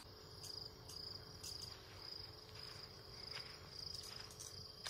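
Crickets chirping in a steady pulsing rhythm, a few high chirps a second, over a faint low hum, with a few soft clicks.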